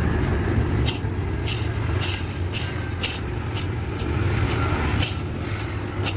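Car engine running at idle with irregular short, sharp clicks about twice a second over the steady hum: the clutch-bearing noise the mechanic is showing, a sign of a worn clutch release bearing.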